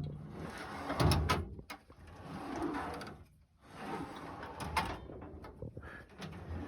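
Steel drawers of a US General 27-inch tool chest sliding open and shut on their slides, with a few sharp clicks and knocks as they reach their stops.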